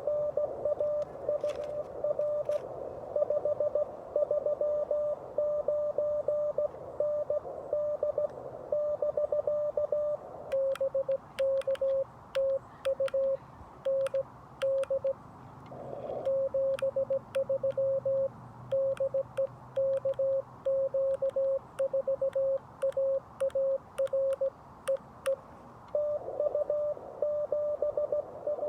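Morse code (CW) tones from a Xiegu G90 HF radio keyed on and off at about 17 words per minute. For the first third and again near the end the tone is a received signal with band noise around it. In between, at a slightly lower pitch, is the operator's own sending: the radio's sidetone with the clicks of the paddle key.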